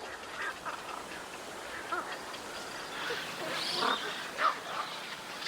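A mixed breeding colony of waterbirds (spoonbills, little egrets and cormorants) calling: many short, overlapping croaks and squawks from different birds.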